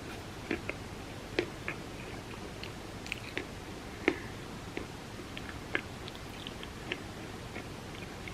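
Close-miked chewing: a string of soft, wet mouth clicks and smacks at an irregular pace, with one sharper click about four seconds in.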